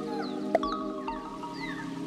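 Music: held chords that change twice, with short falling whistle-like notes above them. A single sharp click comes about half a second in.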